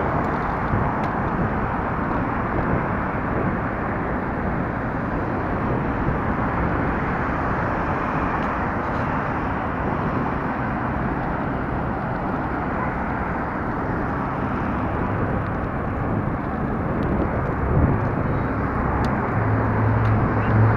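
Steady rush of wind on the microphone mixed with road and traffic noise while riding along a busy street.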